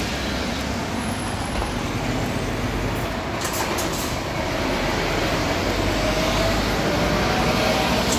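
Street traffic: a steady rumble and hiss of passing vehicles, growing slightly louder toward the end.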